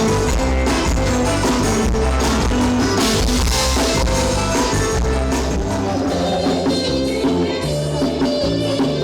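Loud live band music with drums, bass and guitar; the heavy bass drops away about five seconds in.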